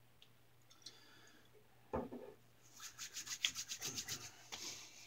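A soft knock, then palms rubbing briskly together about a dozen times, working Clubman Gents Gin aftershave over the hands to apply it to a freshly shaved face.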